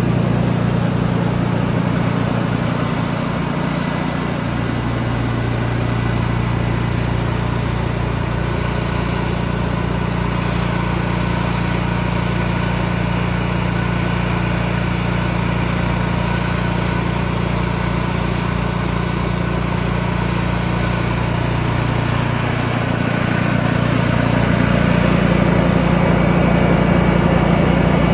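A small portable gasoline generator runs steadily on the cooling trailer, together with the hum of its misting fans. The drone shifts slightly in pitch about four seconds in and gets a little louder near the end.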